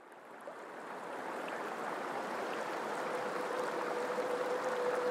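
Water rushing past the hull of a small sightseeing boat under way, fading in from near silence. A steady hum joins about three seconds in.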